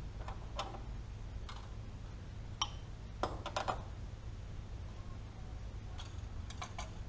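Scattered sharp metallic clicks and clinks of hands and a wrench working the steel injector lines and their fittings loose on a first-gen Cummins 12-valve diesel, with the engine off, over a steady low hum.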